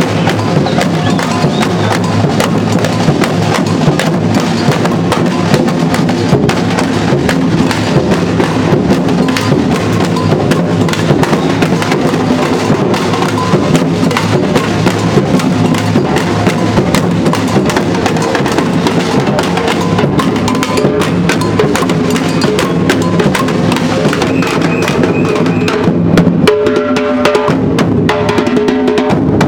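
Street drum band playing: large bass drums, snare drums and other hand-carried drums struck with sticks in a dense, steady rhythm. The pattern changes a few seconds before the end.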